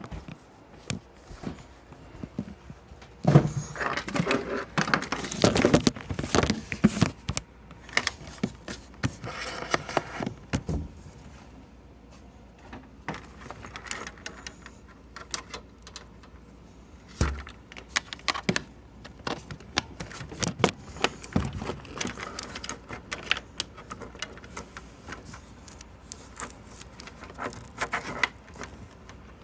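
Irregular clicking and rattling of small hard objects being handled, busiest in two spells early and late, with a single low thump midway.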